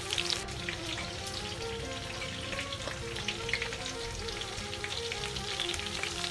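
Batter-coated chicken drumsticks shallow-frying in hot oil in a pan: a steady sizzle with frequent small crackles and pops.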